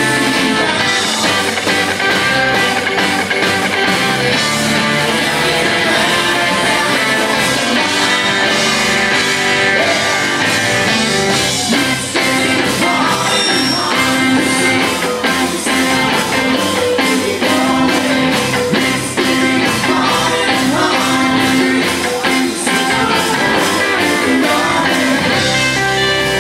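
Live rock band playing electric guitars and drums at full volume, with a singer. The band is heard from the audience.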